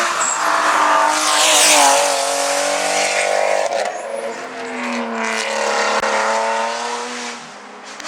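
Race car engine revving hard on a hillclimb run, its pitch climbing and then dropping at each gear change, twice over. A burst of hiss comes about two seconds in, and the engine fades near the end.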